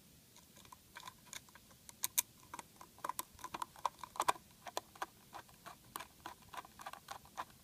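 A small screw being turned by hand with a screwdriver into the end cap of a Fluke 435 analyzer's case. It gives a run of light, irregular clicks and ticks, several a second.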